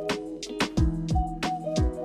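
Background music: an electronic track with a steady beat of kick and snare or hi-hat hits over sustained synth chords.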